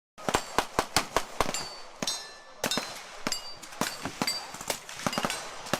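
Gunfire at a shooting range: a quick string of shots, about five a second, for the first second and a half, then scattered shots at varying loudness.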